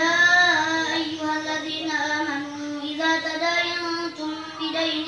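Melodic Qur'an recitation by a single male reciter's voice through a microphone, chanting long drawn-out phrases, with a short breath about four seconds in before the next phrase.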